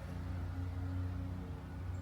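Steady low hum of a running vehicle engine.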